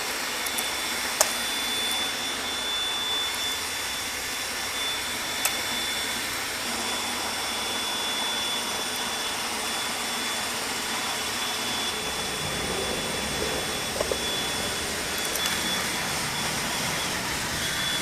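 A steady whooshing noise from a running machine, with a thin high whine held throughout and a few small clicks.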